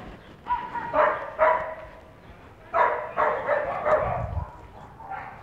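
A dog barking several times, in two bouts of short barks.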